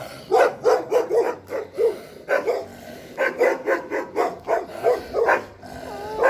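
A dog barking over and over in quick runs of several barks a second, with short pauses between the runs.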